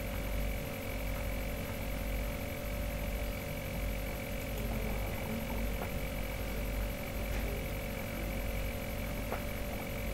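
Steady background hum: a low rumble with constant electrical tones and a faint high whine, and a few faint clicks.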